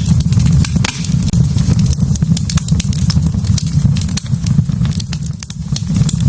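Wood fire in a fireplace crackling, with frequent sharp pops and snaps over a steady low rumble of the flames.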